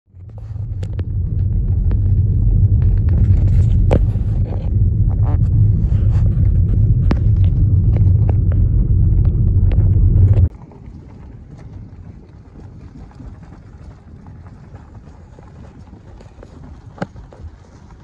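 A car driving on a dirt road: a loud low rumble of the tyres, with many sharp clicks and ticks of gravel, which cuts off suddenly about ten seconds in. It gives way to a much quieter, steady rush of wind noise on the microphone, with a single click near the end.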